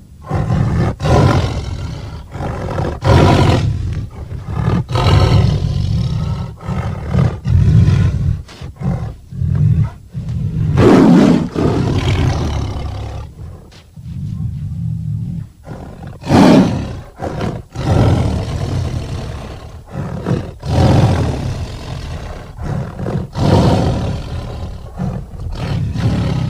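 Cartoon mongoose sound effect: a string of growls and roars, one after another every second or two, with a couple of higher-pitched cries standing out about eleven and sixteen seconds in.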